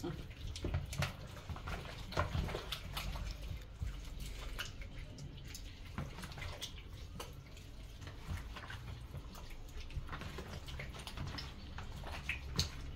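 Gloved hands kneading raw chicken pieces in a wet spice marinade in a plastic bowl: irregular wet squelches and small sticky clicks, over a faint low hum.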